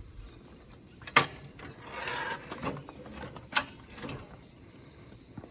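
Metal clicks and clanks from a miter saw stand with a DeWalt planer on it being handled: one sharp loud click about a second in, a short rasping slide around two seconds in, then two more clicks.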